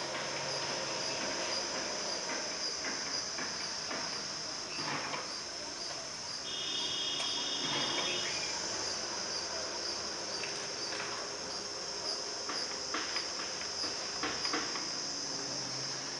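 Steady, high-pitched chirring of insects, with a brief higher tone for about two seconds partway through and a few faint clicks.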